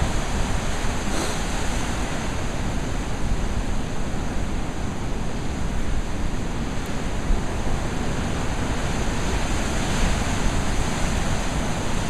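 Heavy storm surf breaking and washing over shoreline rocks at an extraordinarily high tide, a steady wash of noise with no single crash standing out. Blizzard wind is mixed in, rumbling on the microphone.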